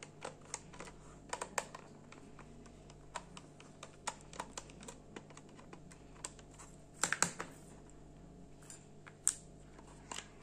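Small screwdriver working screws out of a plastic digital multimeter case: scattered small clicks and scrapes of metal on screw and plastic, with a cluster of louder clicks about seven seconds in.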